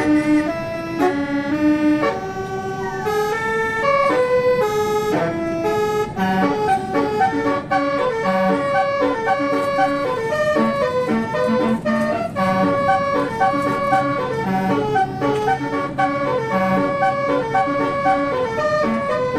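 Bus basuri (telolet) horn playing a melody in clear, stepping horn notes. The notes are slow for the first six seconds, then turn into a quicker, rhythmic tune with a repeating low note.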